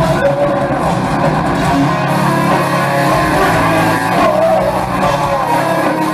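Heavy metal band playing live, with electric guitars, bass and drums and some singing, recorded from within the audience.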